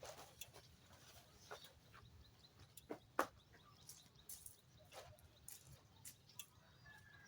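Faint, scattered knocks and clicks at irregular times, with the sharpest one about three seconds in.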